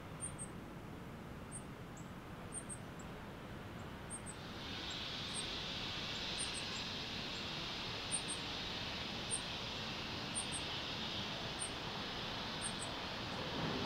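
Outdoor background with faint, very high chirps repeating about once a second, often in pairs. A steady hiss comes in about four and a half seconds in.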